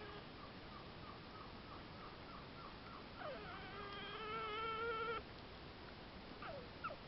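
Porcupine vocalizing while it eats: a run of faint short squeaks, about four a second, then a long whining cry that drops in pitch and holds for about two seconds before cutting off, and two brief falling squeaks near the end.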